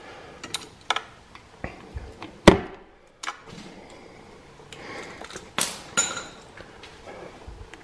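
Hand tools, a wrench and Torx socket, clinking and knocking against the ATV engine's aluminium oil filter cover while its bolts are undone. There is a string of separate metallic clicks, the loudest about two and a half seconds in, with paper towel rustling in between.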